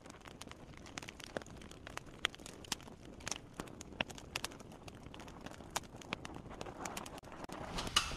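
Crackling sound effect: a steady hiss scattered with irregular sharp clicks and pops, growing a little louder near the end.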